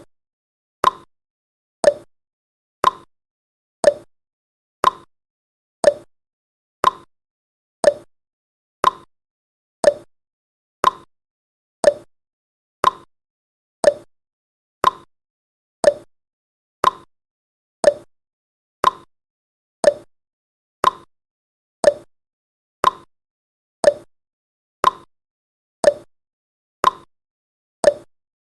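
Countdown timer's tick sound effect, one short sharp tick every second at an even pace, marking each second counted down.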